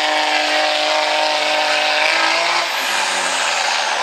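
Dodge Ram dually's Cummins inline-six turbo-diesel running hard at high revs while pulling a weight-transfer sled, with tyres churning in the dirt. About three-quarters of the way through, the revs drop away in a falling pitch as the engine comes off the throttle.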